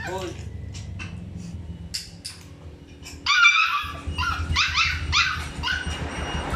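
A dog barking and yelping in a quick series of short calls starting about three seconds in, over a low steady rumble.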